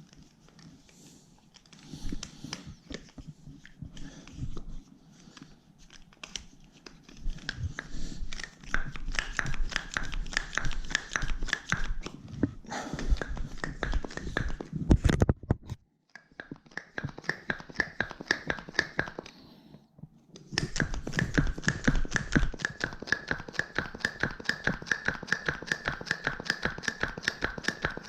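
Air pump inflating the Xiaomi M365 scooter's front tyre through its extension hose, in three runs of quick, even pumping strokes with air hissing through the valve and short pauses between them. Before that, a few seconds of handling noise as the hose is fitted to the valve.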